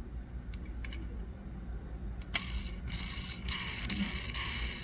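Handling of a small diecast toy car and its parts: a few light clicks, a sharp click a little over two seconds in, then a couple of seconds of scraping and rattling.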